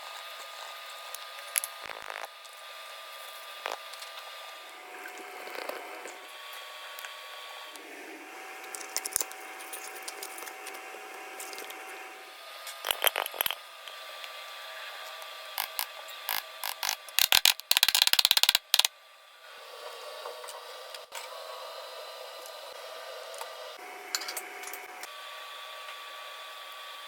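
A small electric motor whirring steadily, switching in and out across several short segments, with scattered clicks. About three-quarters of the way through comes a loud, fast rattle lasting a second or two.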